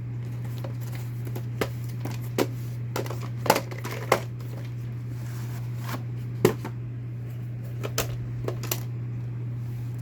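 A VHS tape being handled, giving scattered plastic clicks and knocks, about eight in all, over a steady low electrical hum.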